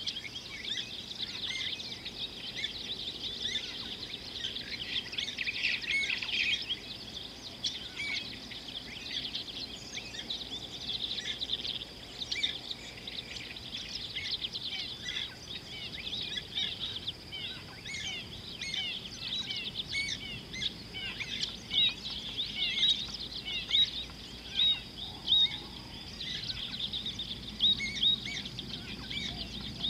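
Many birds chirping and calling at once, a busy chorus of short high notes, with a few louder, sharper calls in the last several seconds. A steady high hum runs underneath.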